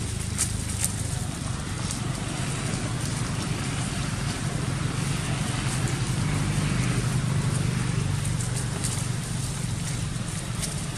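Steady low rumble with faint scattered ticks over it.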